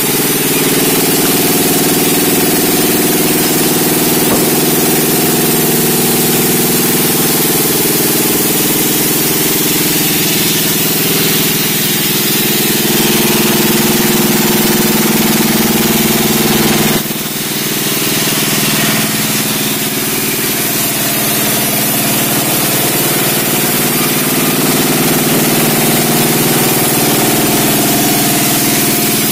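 Engine-driven sawmill running steadily, with a brief dip in level about seventeen seconds in.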